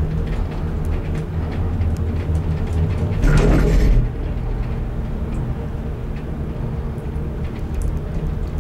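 Gondola cabin running along its haul rope, a steady mechanical hum with low droning tones. About three seconds in, a louder rumble lasting under a second cuts in and stops sharply.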